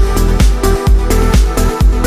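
Background electronic dance music with a heavy, steady bass beat, a little over two beats a second.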